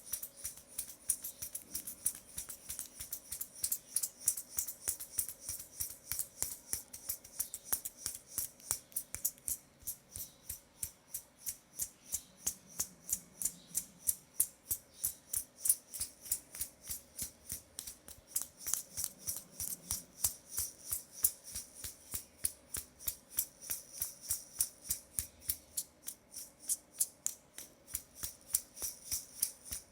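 A rapid, even run of crisp, sharp clicks, about four a second, without a break.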